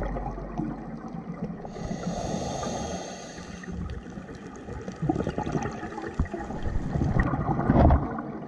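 Underwater sound through a dive camera's housing: gurgling, crackling water noise with a louder rush of bubbles near the end, typical of a scuba diver exhaling through the regulator. Background music fades out at the start.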